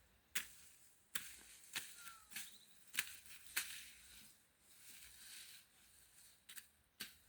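A series of about eight sharp knocks at uneven intervals, each followed by a short scraping rustle, with a quieter gap in the middle.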